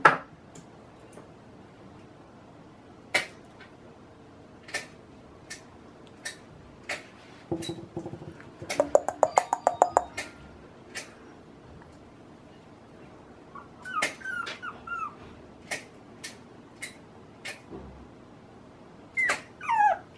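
Two-month-old puppy giving short, high whimpers in two brief bouts, about two thirds of the way through and again near the end, the last ones falling in pitch. Scattered light clicks come between them, with a quick run of taps about halfway through.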